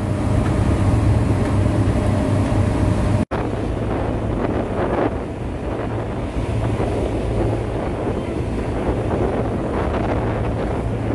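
Passenger ferry's engine running with a steady low hum, under wind buffeting the microphone and the rush of water along the hull. A brief dropout about three seconds in where the recording cuts.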